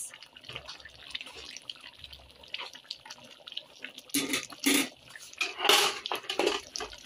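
Coconut-milk stew with squash, pork and malunggay leaves simmering in a wide pan, bubbling with small pops and gurgles, with a few louder splutters between about four and six seconds in.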